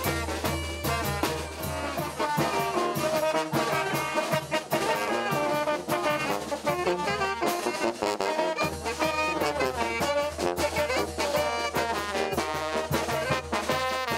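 Mexican village brass band (banda de viento) playing a lively tune: trombones, trumpets, alto horn and saxophone over a sousaphone bass line, with a steady beat from the bass drum and cymbal.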